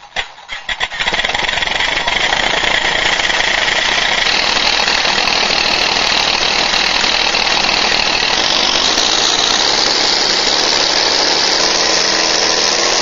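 Two RC sound modules playing a simulated Daimler-Benz aircraft engine through speakers, slightly offset to sound like a twin-engine plane. The engines crank and sputter to life in the first second or two, then run steadily. The note grows brighter about four seconds in and again after about eight seconds.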